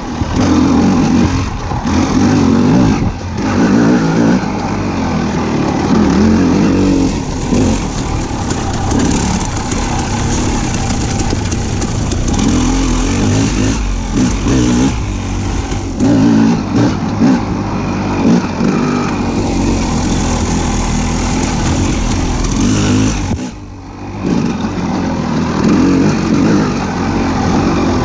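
A motor vehicle's engine running, its sound swelling and easing every second or two as if revved, with a brief lull near the end.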